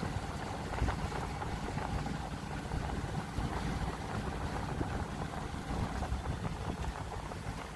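Ohlson 8:8 sailing yacht motoring under its inboard engine, which runs steadily at low speed.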